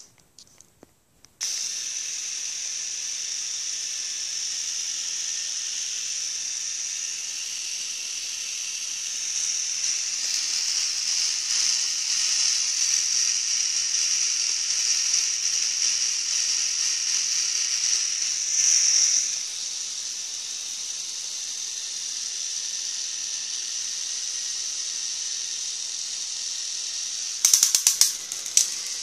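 K'NEX model of a Fairbanks Morse engine running, its plastic gear train and flywheel spinning with a steady high whirr. The whirr starts abruptly about a second in, grows louder through the middle and eases a little about two-thirds of the way through. There are bursts of rapid plastic clicking at the very start and again near the end.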